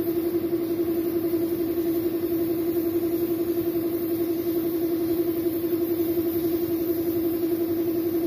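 Air compressor running steadily with a constant hum, under the steady hiss of a gravity-feed spray gun spraying paint onto a motorcycle wheel rim.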